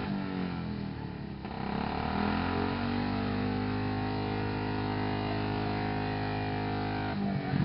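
Motorcycle engines with straight-through exhausts revving hard. The pitch drops about a second in, climbs back up and is held steady at high revs, then breaks off near the end.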